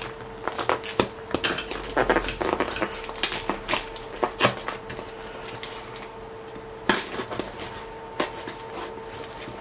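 A parcel being unwrapped by hand: irregular crackles, taps and rustles of packaging, busiest in the first few seconds and thinning out later, with a sharp click about seven seconds in.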